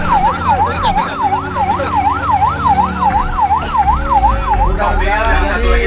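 Emergency vehicle siren in a fast yelp, its pitch swinging up and down about three times a second, cutting off about five seconds in. A vehicle engine rumbles underneath.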